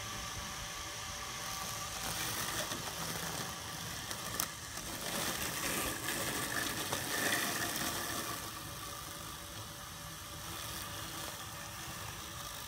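YouNoMow E-2 robotic mower running as it drives across grass, a steady mechanical whine with several held tones. It gets louder and noisier for several seconds in the middle, with a single sharp click about four seconds in.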